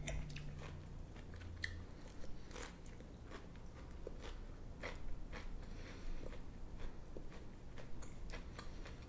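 Close-up eating sounds: a metal fork clicking and scraping against a ceramic bowl at irregular moments, with chewing of pan-fried potatoes and vegetables.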